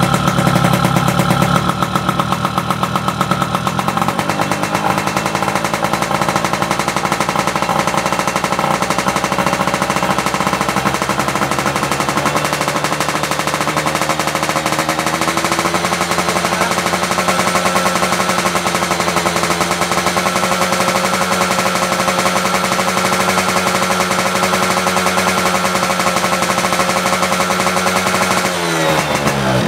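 Yamaha F1ZR's 110cc two-stroke single idling with a fast, steady popping beat while the carburettor's mixture screw is set by turns toward 1.5 turns out. The idle note shifts slightly as the screw is turned, and near the end the revs dip and then climb sharply.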